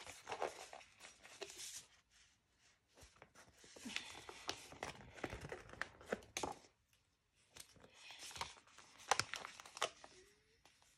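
Paper sticker sheets crinkling and rustling as they are handled and flexed, with stickers peeled off their backing in short crackly tears. The sounds come in several bursts with brief pauses between them.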